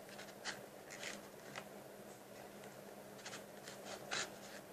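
Faint scraping and rubbing strokes, about five short ones spread over a few seconds: a utensil scraping sticky glue slime out of a plastic cap.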